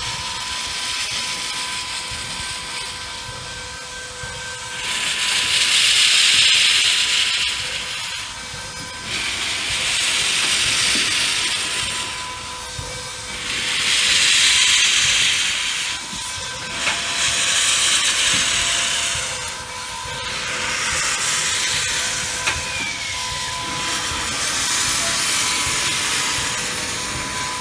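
Nickel Plate Road 765, a Lima-built 2-8-4 Berkshire steam locomotive, blowing steam from its open cylinder cocks while moving slowly: six long bursts of hiss roughly four seconds apart, over a steady high tone.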